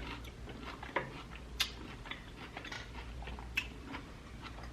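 Close-miked chewing of broccoli: soft wet mouth clicks and small crunches, with a few sharper clicks about one, one and a half and three and a half seconds in.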